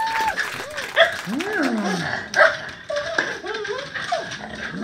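A small dog whining and yipping in short rising-and-falling cries, with two sharp yelps, about a second in and near the middle.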